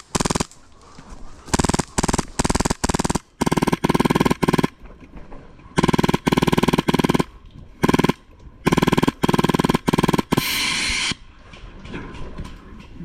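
An HPA-powered airsoft rifle firing on full auto in a dozen or so short, rapid bursts, each a rapid string of shots. A short steady hiss follows about ten seconds in.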